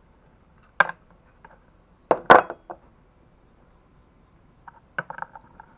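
Knocks and clatter of hand tools and small metal parts being handled: one sharp knock about a second in, a louder double clatter a little past two seconds, and a run of light clicks near the end.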